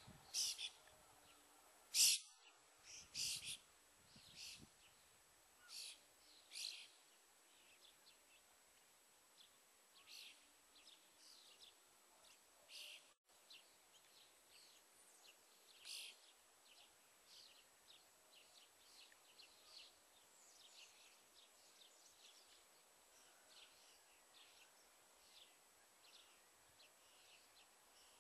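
Small birds singing: many short, high chirps repeating, with the loudest calls in the first several seconds.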